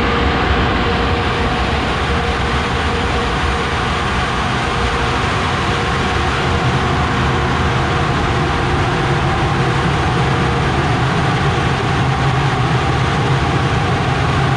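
Heavy farm machinery running steadily, a loud even drone with a low hum underneath.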